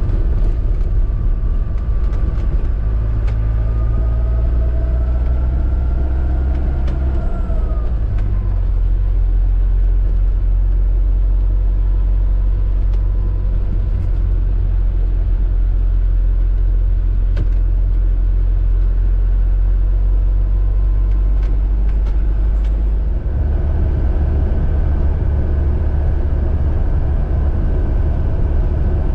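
Engine and road rumble inside the cab of a classic Hymer motorhome on the move. The engine note rises over the first several seconds, drops about eight seconds in, and changes again near the end as the vehicle changes speed.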